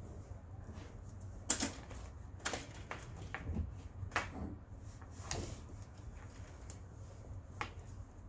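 Movement and handling noise close to a phone's microphone: about five short clicks and rustles, a second or so apart, over a low steady hum.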